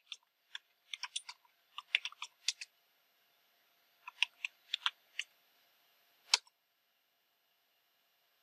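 Typing on a computer keyboard: two quick runs of keystrokes, then one louder key press about six seconds in.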